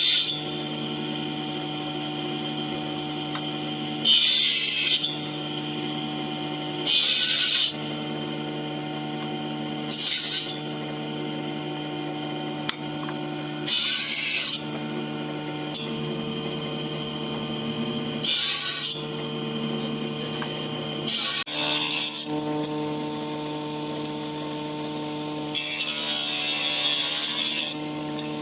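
A woodworking power tool running steadily, with seven short cuts into wood, each lasting about a second; the last, near the end, is longer.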